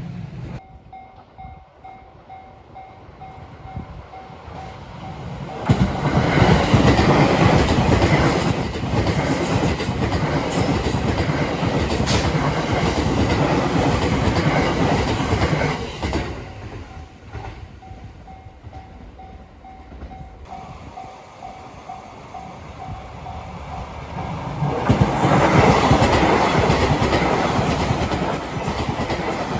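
Level crossing warning bell ringing in a steady repeating two-tone pattern, then a train passing over the crossing with loud clattering of its wheels over the rail joints. About halfway through the bell rings again, and the next train's loud joint clatter comes in near the end.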